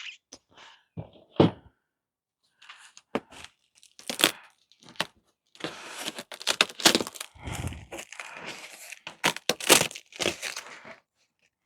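Packaging being torn open and rummaged through: irregular crinkling, tearing and light knocks of parts being handled, sparse at first and busiest in the second half.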